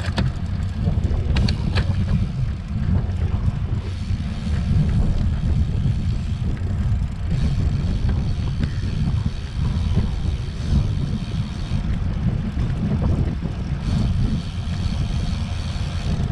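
Wind buffeting the microphone of a rider moving along a road at speed, a steady low rumble.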